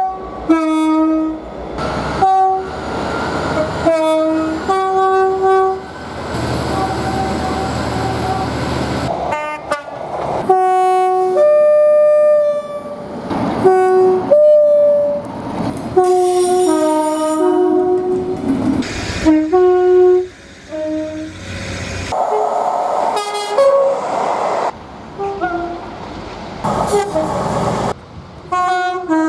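A rapid string of British train horns, one after another with abrupt cuts, most of them two-tone high-then-low soundings. The noise of passing trains runs between some of them.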